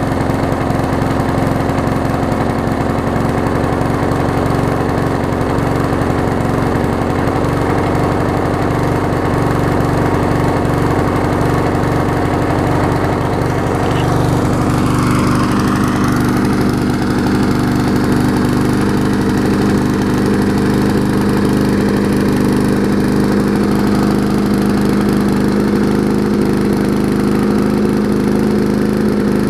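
A late-1970s Briggs & Stratton single-cylinder mower engine on a Murray push mower running steadily, just after it was started. It has the correct carburetor fitted and its intake tube freshly tightened, and it runs well. Its tone shifts slightly about halfway through.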